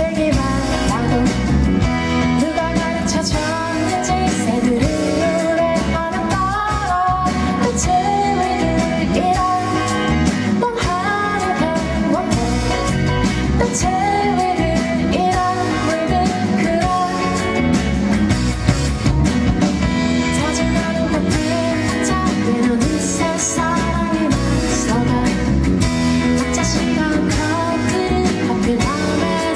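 Pop song performed live: a woman sings the melody over instrumental accompaniment.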